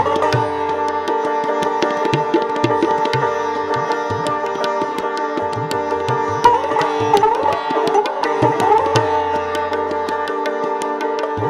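Sitar and tabla playing Hindustani classical music together. The sitar's plucked melody bends in pitch over its ringing strings, most noticeably in the middle stretch. The tabla keeps up a steady run of sharp strokes with deep, ringing bass notes.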